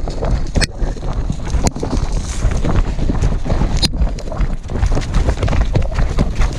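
A harness-mounted camera on a running hunting dog: dry weeds and brush scraping across the camera and the dog, over a steady low rumble of wind and jostling on the microphone. A few sharp knocks stand out as stems and branches strike the camera, the clearest about a second and a half in and near four seconds in.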